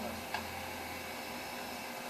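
Steady hiss with a low hum underneath, and a single sharp click about a third of a second in.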